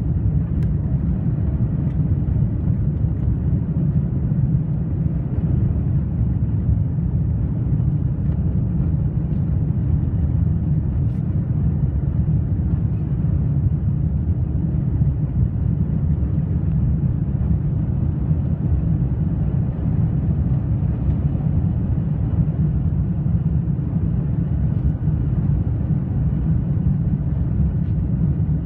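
Steady, low cabin noise inside an Airbus A330-200 climbing after takeoff: engine noise and rushing airflow heard from a window seat by the wing, unchanging throughout.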